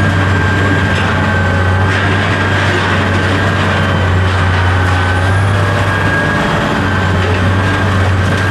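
A machine running steadily, with a loud low hum and a thin, steady high whine held over it.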